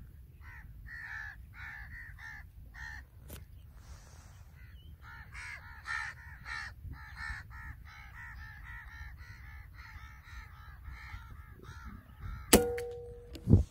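A bird calling over and over, a few short calls a second, with a brief lull about a third of the way in. Near the end come two sharp cracks about a second apart from the Artemis P15 PCP air rifle being fired; the first is louder and carries a short ringing tone.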